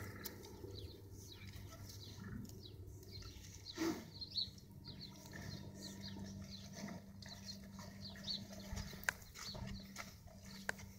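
Faint chirping of small birds, with a low steady hum, a soft thump about four seconds in and a few light clicks near the end.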